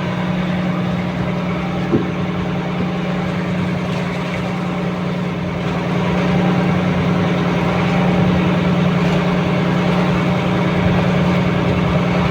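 Small fishing boat's engine running steadily, a constant hum that gets a little louder about halfway through.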